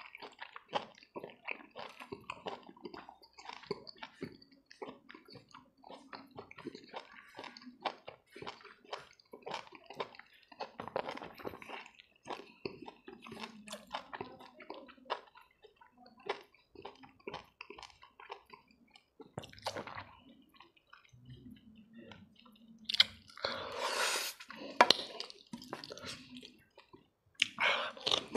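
Close-up wet mouth sounds of eating boiled pork and cabbage by hand: chewing, lip smacking and sucking the food off the fingers, in many small clicks and squishes. A louder, noisier stretch of a couple of seconds comes a few seconds before the end.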